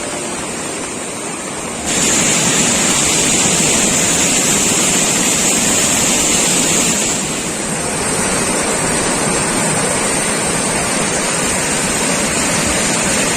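Rushing floodwater: a loud, steady rush of noise that grows louder about two seconds in and eases slightly about seven seconds in.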